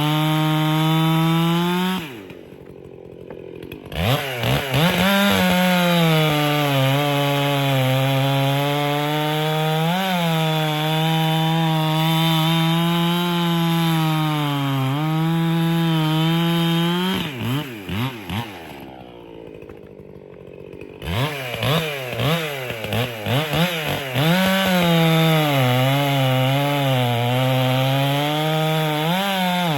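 Echo gas chainsaw cutting through a log at full throttle, its engine note sagging slightly and recovering under load. Twice it drops back to idle for a couple of seconds, then is blipped up unevenly and settles into the next cut.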